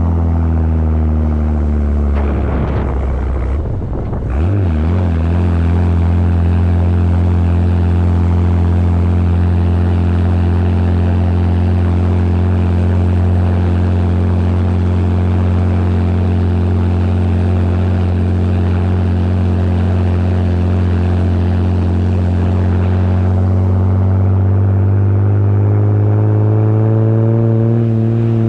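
Toyota HJ45 Land Cruiser engine running at steady road speed, heard from on board the moving vehicle. About three seconds in, the engine note drops and stumbles for a couple of seconds, as in a gear change, then settles back to a steady drone. Near the end the revs climb slowly.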